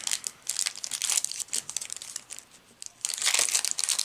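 Foil Yu-Gi-Oh booster pack wrapper being torn open and crinkled by hand: a run of sharp crackles, loudest near the end as the crumpled wrapper is pulled back from the cards.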